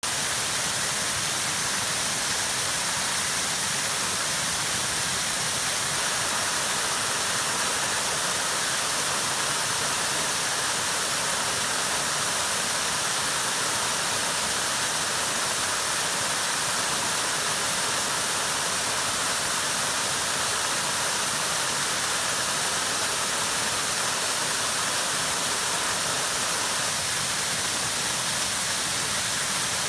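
Waterfall cascading over rock ledges into a shallow pool: a steady, unbroken rush of falling water with a bright hiss.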